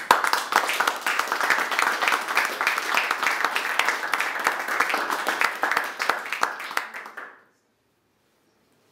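Audience applauding: many hands clapping in a dense patter that cuts off about seven seconds in.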